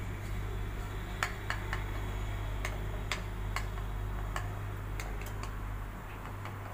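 Spoon clinking irregularly against the side of a bowl while stirring custard powder into milk, over a steady low hum.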